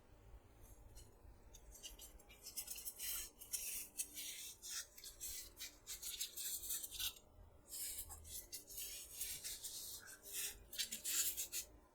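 Hands handling a cantaloupe, making irregular short scratchy rubbing sounds, several strokes a second with brief pauses.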